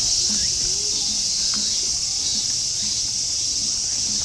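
Cicadas buzzing in a steady, unbroken high-pitched chorus.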